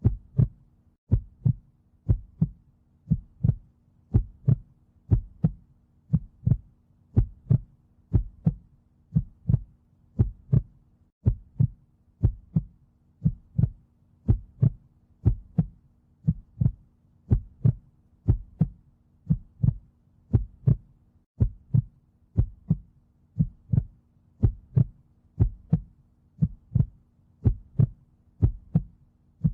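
Heartbeat sound beating steadily in a lub-dub rhythm, a little more than one double thump a second, over a faint steady low hum.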